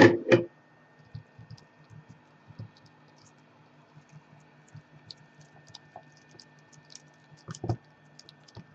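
Gloved fingers pressing and tapping around the edges of a newly fitted iPad 2 digitizer glass, making scattered light clicks as the glass is seated onto its reheated adhesive. Two louder knocks come right at the start, and another thump about seven and a half seconds in.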